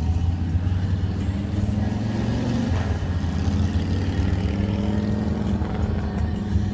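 A vehicle running with a steady, low engine rumble.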